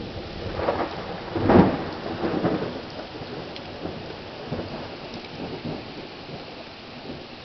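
Heavy rain falling steadily, with a clap of thunder about a second and a half in that rumbles on and fades over the next few seconds.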